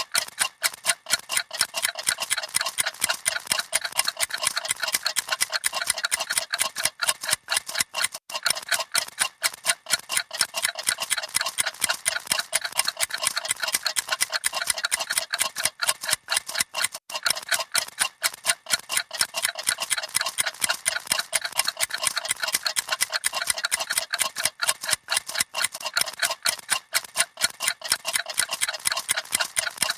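Many clocks ticking at once, a dense, fast, overlapping patter of sharp mechanical ticks with no single steady beat.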